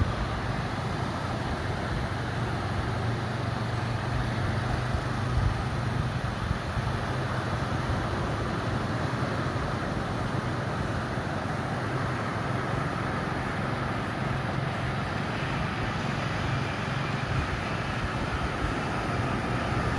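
Sea waves breaking on a beach: a steady roar of surf with no clear pauses, and a low hum underneath for the first few seconds.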